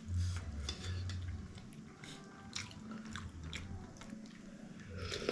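Eating at close range: chewing, with small clicks of cutlery against dishes.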